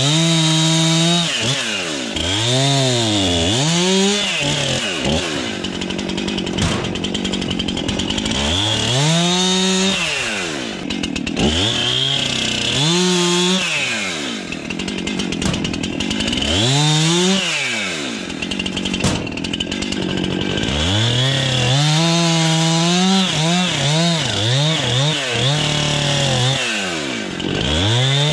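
Two-stroke chainsaw cutting branches to length, revving up and dropping back again and again, its pitch rising and falling with each cut.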